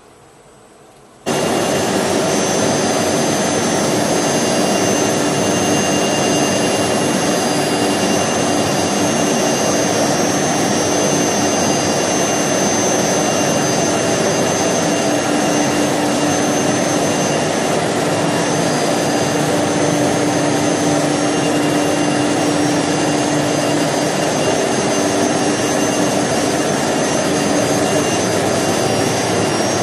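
Automatic-tool-change CNC router running, a loud steady machine noise with a constant whine, cutting in abruptly about a second in.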